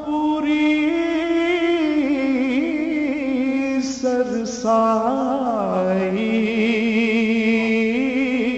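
A man singing a Sufi kalam, holding long, slowly wavering notes that glide from pitch to pitch, with no words broken out.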